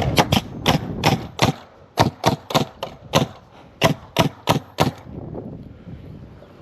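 A quick run of about fifteen sharp knocks on timber, roughly three a second, stopping about five seconds in.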